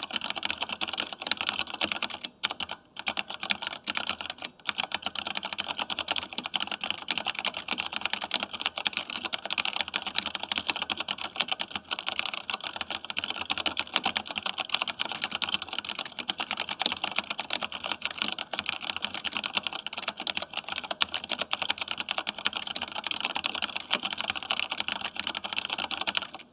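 Fast, continuous typing on a Compaq G80-11800 keyboard with Cherry Old MX Brown switches, no plate and thick keycaps: a dense run of key clicks with short pauses a couple of times early on, stopping abruptly at the end.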